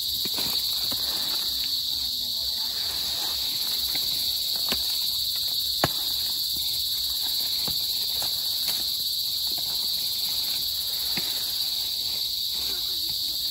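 Insects droning steadily at a high pitch, with a few sharp clicks now and then, the loudest about six seconds in.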